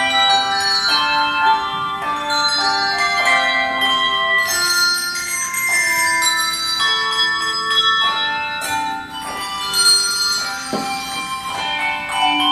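An English handbell choir ringing a tune in rhythm, melody notes and chords struck together, each bell ringing on with a bright, sustained tone.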